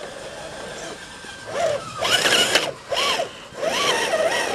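Scale RC crawler truck's electric motor and geared drivetrain whining in short throttle bursts, the pitch rising and falling with each burst. The bursts start about one and a half seconds in, three or four of them.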